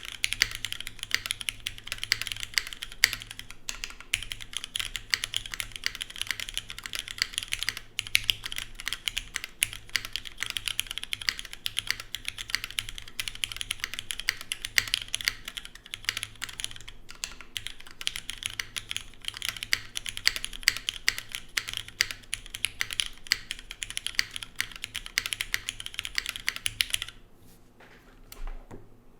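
Fast, continuous typing on a TGR Jane ME mechanical keyboard with lubed and filmed Cherry MX Black linear switches, GMK keycaps, an aluminium plate and an O-ring mount, with no foam inside. The typing stops about two seconds before the end.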